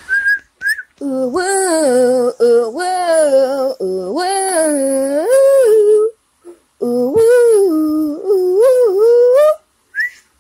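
A voice singing a wordless intro tune in long, gliding notes, with short whistled notes at the start and a brief rising whistle near the end.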